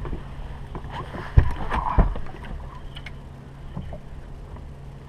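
A released bass dropped back into the lake with a short splash, with two hard knocks about half a second apart. A low steady hum runs underneath.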